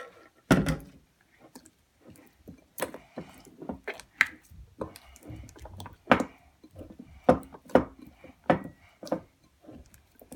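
Slime being mixed, giving irregular sharp clicks and knocks, about one or two a second, some loud.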